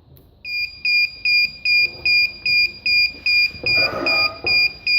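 Electronic buzzer of a changeover unit beeping steadily in a high tone, a little over two beeps a second, starting just after live power reaches its first input.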